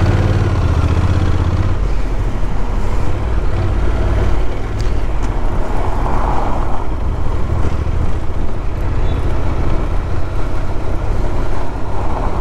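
Honda NC750X motorcycle's parallel-twin engine running at low speed in city traffic, with a steady low rumble under road and traffic noise.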